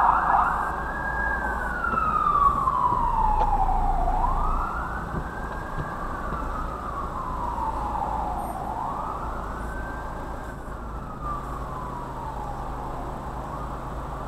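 Fire engine siren on its slow wail, rising quickly then falling slowly, about three cycles roughly four seconds apart, growing fainter as it goes.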